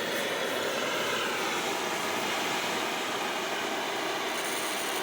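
Oxy-fuel cutting torch flame burning with a steady hiss while its gas and oxygen are being adjusted.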